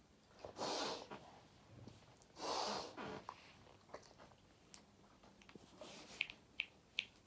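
A person sneezing twice from hay fever, two sharp bursts about a second and a half apart. Three short, high squeaks follow near the end.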